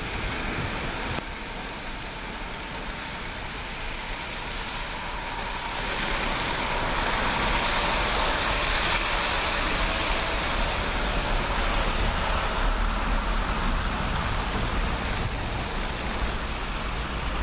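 SEPTA Silverliner IV electric railcar approaching over snow-covered track; its running noise grows louder about six seconds in, with a faint whine.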